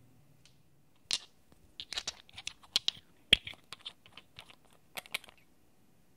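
Irregular clicks and taps of glass nail polish bottles and their plastic caps being handled, set down and unscrewed, a quick run of small knocks from about a second in until about five seconds in.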